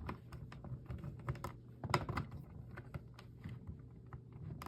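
Scattered light clicks of plastic Lego bricks being handled and pressed onto a build, over a faint steady low hum.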